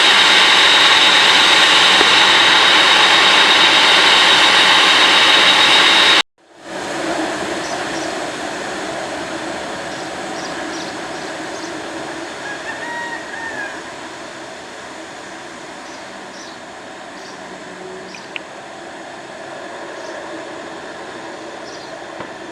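Boeing 747-8F's four General Electric GEnx-2B turbofans at takeoff thrust, loud with a steady high whine. About six seconds in the sound cuts off abruptly, giving way to a much quieter rumble that slowly fades, with a few faint short chirps.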